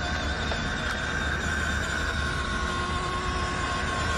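Electric drive motor and gears of a 1/18-scale RC pickup truck whining steadily as it drives at full throttle.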